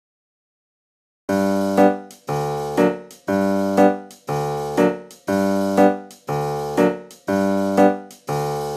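Background music: a keyboard plays a chord about once a second in a steady rhythm, each chord fading and lightly struck again. It starts after about a second of silence.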